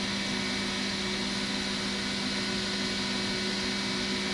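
Steady hum and hiss of a powered-up Miyano CNC lathe standing idle, with a constant low tone.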